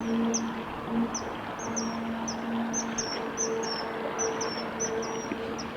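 A small bird's high, thin chirps, repeated quickly about two or three times a second, over the steady rush of a flowing stream and a faint low hum.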